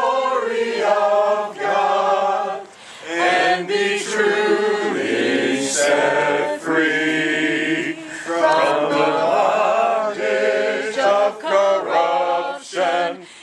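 A small group of men and women singing a hymn together from songbooks, in sustained phrases with short breaths between them.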